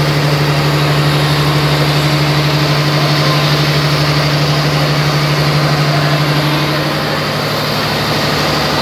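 Fishing boat's engine running steadily at sea, a constant low hum.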